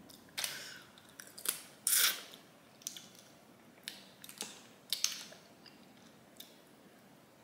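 Boiled crawfish shells cracking and snapping as they are peeled by hand, with sucking and chewing as the meat is eaten: a scattered series of about a dozen short, sharp cracks and wet mouth noises.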